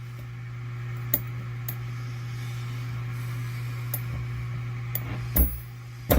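A few scattered light clicks and taps of a thin flat screwdriver against small metal assembly parts while a screw is driven into a plate, the loudest click near the end. A steady low hum lies underneath.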